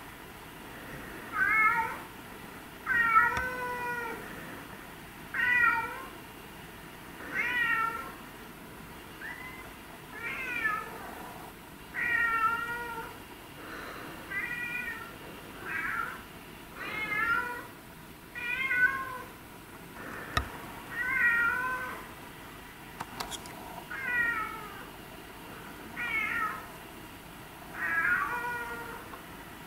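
A domestic cat meowing over and over, about one meow every two seconds, each call bending up and down in pitch.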